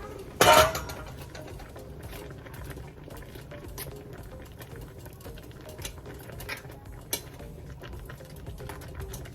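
Pot of seafood okra soup simmering on the stove, with irregular small bubbling pops over a steady low hum. A single loud knock comes about half a second in.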